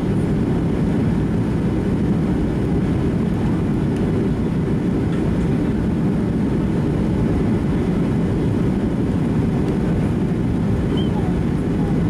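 Steady cabin noise inside a Boeing 737-700 on descent: an even, low rush of airflow and its CFM56-7B engines, heard from a window seat over the wing.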